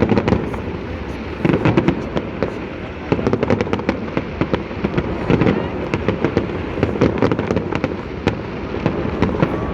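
Fireworks display: a dense, continuous crackle of many sharp pops over a low rumble of bursts.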